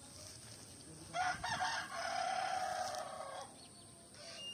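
A rooster crowing once. The call starts about a second in and lasts about two and a half seconds, ending in a long held note.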